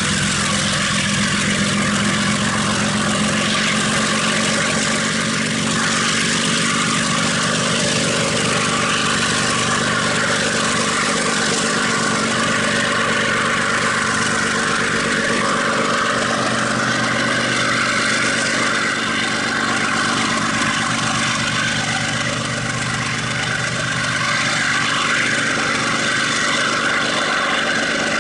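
Diesel-electric freight locomotive's engine running steadily under load as the train passes, with the rumble and squeal of its wagons' steel wheels on the rails of a curve.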